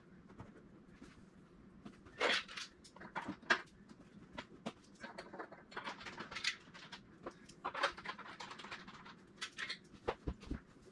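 Irregular rustles, scrapes and light clicks of hands and tools working at a racing seat's mounting inside a car's door opening.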